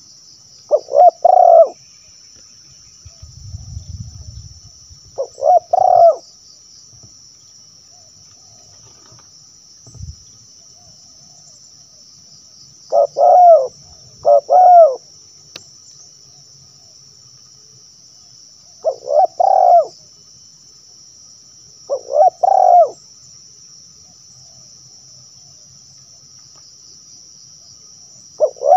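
Spotted dove cooing: short phrases of two or three arched, throaty coos, repeated every few seconds with pauses between them. A steady high-pitched hum sits behind the calls.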